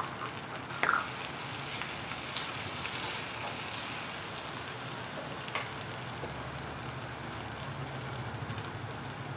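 Green chillies, coriander leaves and kasuri methi (dried fenugreek) sizzling in a little hot oil in a frying pan: a steady frying hiss with a couple of sharp crackles.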